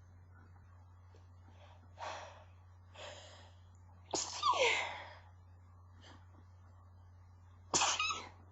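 A woman's stifled sneezes: two short sharp inhales about a second apart, then a partly held-back sneeze with a falling pitch about four seconds in, and another stifled sneeze near the end.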